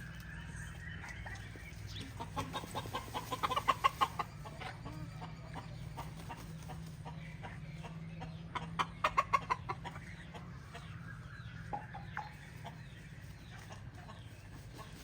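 Chickens clucking, with two runs of rapid clucks that grow louder, about two and about eight seconds in, and scattered single calls between, over a steady low rumble.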